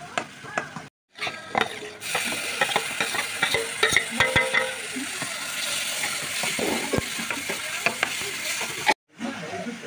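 A spatula stirring and scraping spices in a hot kadai, then tomato purée hitting the hot oil about two seconds in and sizzling loudly, with clicks of the spatula against the pan. The sound drops out to silence twice, briefly, about a second in and near the end.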